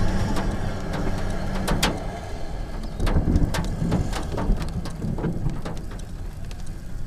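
Hailstones striking hard surfaces in a thunderstorm, a stream of sharp, irregular clicks and taps over a steady low engine hum.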